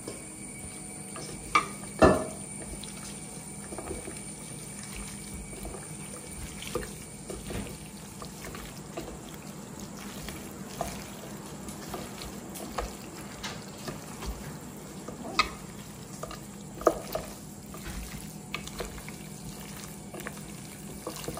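Hands squishing and turning raw chicken pieces through a thick kebab masala in a bowl, giving wet squelching with scattered knocks. The two loudest knocks come about two seconds in.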